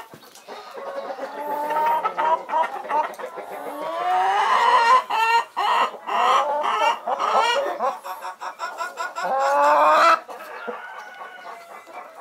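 Hen cackling: a rapid run of repeated clucks, each rising in pitch, that builds up twice and drops away near the end. It is the loud cackle a hen gives around laying, with fresh eggs in the nest.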